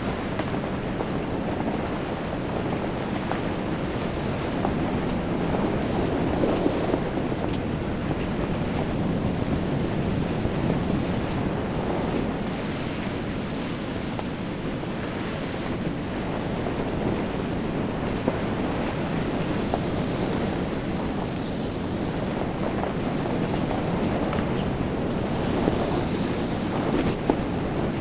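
Truck driving along a dirt and gravel road: steady rumble of tyres and road noise mixed with wind, with a few small knocks over the bumps.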